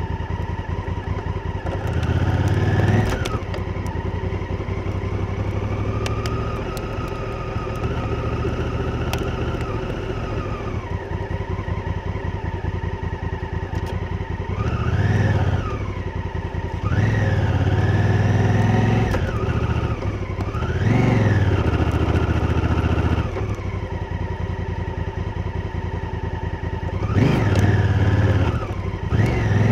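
Honda Africa Twin's parallel-twin engine running under way, the revs rising sharply and dropping back again about five times between steadier stretches of throttle.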